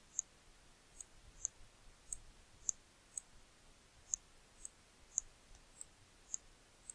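Faint, sharp clicks of a computer mouse button being pressed and released, roughly twice a second at uneven spacing, as letters are drawn stroke by stroke with the mouse.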